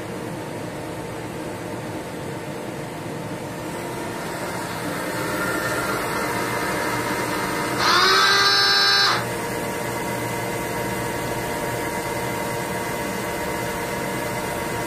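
Samsung MCV-50 vertical machining center running a program: a steady machine hum with several steady tones that grows a little louder about five seconds in. About eight seconds in a loud motor whine starts, rising briefly in pitch, holds for just over a second and cuts off abruptly.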